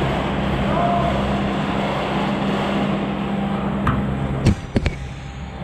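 A steady low hum and rushing noise, broken about four seconds in by a few sharp cracks, two of them close together, of the kind airsoft guns make when fired.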